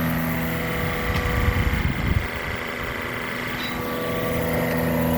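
Watermaker's high-pressure pump running steadily while holding about 1600 psi on the reverse-osmosis membrane housing: a constant machine hum with fixed tones, easing slightly for a couple of seconds midway.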